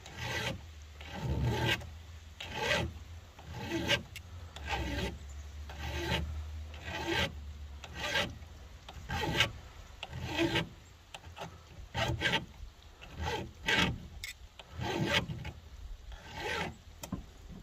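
Flat file rasping across a chainsaw chain's rakers (depth gauges) through a depth-gauge tool, in repeated strokes about one a second. The rakers stand too high and are being filed down so the sharp cutters can bite.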